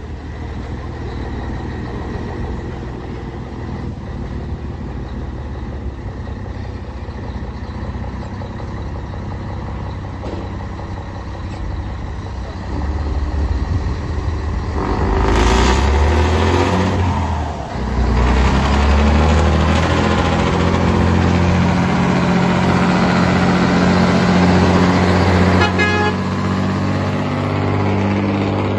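Scania 113 truck's six-cylinder diesel engine running as the truck pulls a livestock trailer, growing louder about halfway through as it comes close. There is a loud burst around the middle, and the engine runs steady and low after it.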